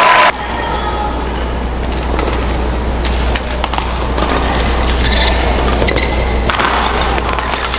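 Badminton rally: a string of sharp racket hits on the shuttlecock and brief high squeaks of players' shoes on the court, over the steady noise of an arena crowd, which swells near the end.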